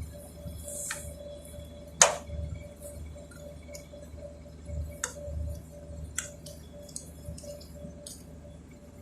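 Hand tools and metal parts being handled: scattered sharp clicks and taps, one loud click about two seconds in, with soft low thumps over a faint steady hum.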